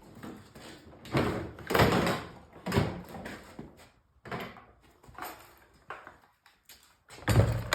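Plastic systainer tool case and tools being handled: a string of irregular clunks and rattles, the loudest about a second in and again near the end.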